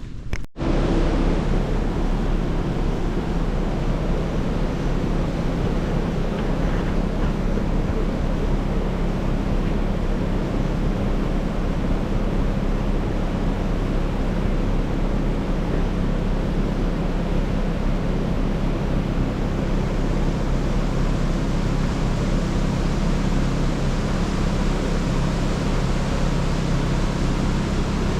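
Steady mechanical hum with an even rushing noise from running machinery. It starts suddenly after a brief cut near the beginning and holds level throughout.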